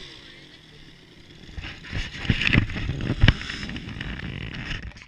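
Polaris Scrambler ATV running, with a few loud knocks about two to three seconds in.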